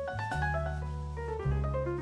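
Live jazz with the piano playing a falling run of notes over long double-bass notes, and the bass changing note twice.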